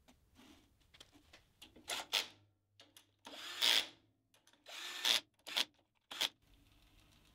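Power drill/driver with a hex bit running in several short bursts, the longest about a second, driving in the screws that hold a steel linear guide rail to the lathe bed.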